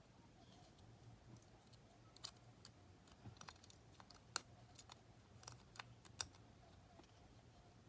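Scattered light clicks and taps from handling small parts and tools during hand repair work, the sharpest about four and a half seconds in, over a faint steady low hum.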